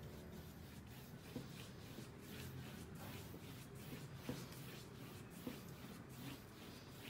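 Faint rustling with scattered light taps and clicks over a low room hum.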